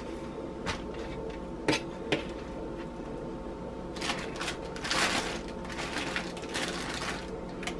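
Chef's knife tapping a few times on a plastic cutting board while trimming fat from raw chicken thighs, then a zip-top plastic bag crinkling and rustling for a second or two about four seconds in as chicken goes into it.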